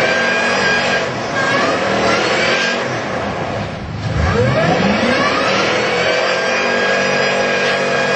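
Second-generation Ford SVT F-150 Lightning's supercharged V8 pulling hard, its pitch climbing; about four seconds in it drops briefly, as at a gear change, then climbs steeply again.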